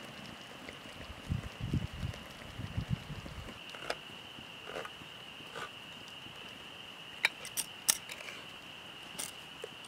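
A steady chorus of frogs calling in the background, with a few low thumps in the first few seconds and scattered sharp clicks and snaps after that, the loudest about seven to eight seconds in.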